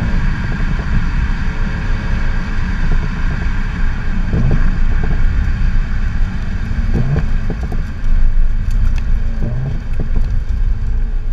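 Exhaust of a 2018 Audi S5 Sportback's turbocharged 3.0-litre V6, heard close to the tailpipes: a loud, deep, steady drone with three brief rises in pitch, about four and a half, seven and nine and a half seconds in, and a few short crackles late on.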